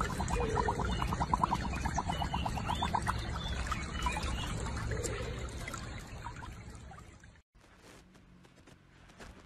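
Water sloshing and trickling around a husky lying in a shallow muddy pool, with a fast run of short pulses, about seven a second, in the first three seconds. It cuts off suddenly about seven and a half seconds in, leaving faint room sound.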